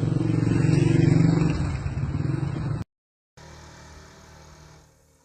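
A motor vehicle's engine, growing louder to a peak about a second in and then easing off as it passes, cut off abruptly near the three-second mark. After a brief silence, a fainter, steadier noise fades out.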